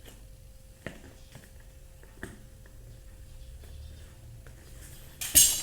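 Packing being handled while a cardboard parcel is unpacked: a few light clicks and knocks, then a brief loud rustling burst about five seconds in.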